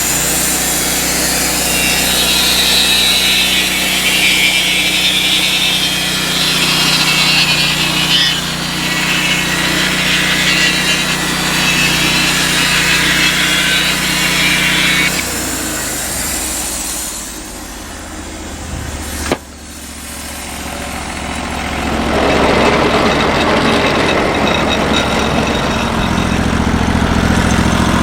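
Norwood portable band sawmill running, its engine and band blade cutting a one-inch board off a log. About halfway through the sound drops away and there is a single sharp click, then the mill's engine comes back up and runs steadily to the end.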